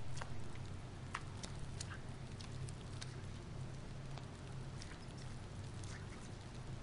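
Small irregular splashes and drips of bath water from a pet hedgehog paddling in a bubble bath, as scattered sharp ticks over a steady low hum.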